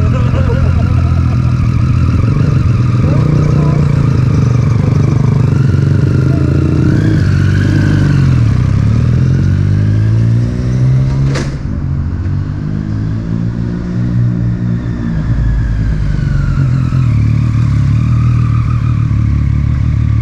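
Yamaha MT-09 three-cylinder engine with an Akrapovic titanium exhaust, running as the bike is ridden. The revs fall and then climb again about eight to nine seconds in. A sharp click comes about eleven seconds in, and the engine is quieter for a few seconds after it.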